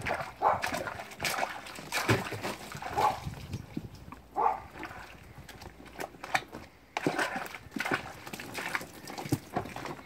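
Water splashing and sloshing irregularly in a tub of foamy bathwater as capuchin monkeys move about in it and are scrubbed by hand.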